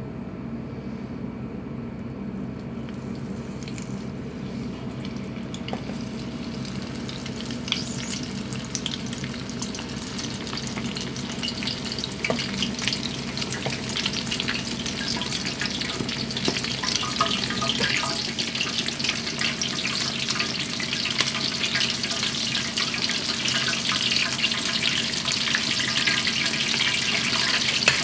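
Satsuma-age patties of fish paste and octopus deep-frying in hot oil in a wok. The oil begins crackling a few seconds in and grows louder and busier as more patties go in, over a steady low hum.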